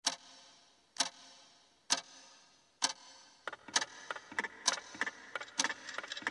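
Wall clock ticking, sharp ticks about once a second, each with a ringing tail. About halfway through, the ticks speed up into a quicker, busier rhythm of roughly three a second.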